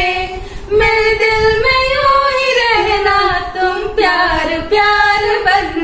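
A woman singing a Hindi film love song unaccompanied, holding long notes, with short breaths between phrases.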